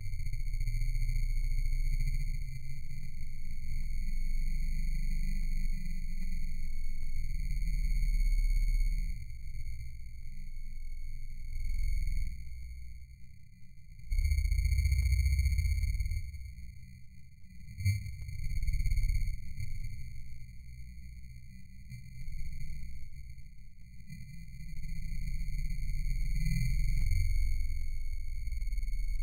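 A steady, high-pitched electronic tone with a ladder of higher overtones, over a low rumble that swells and fades several times.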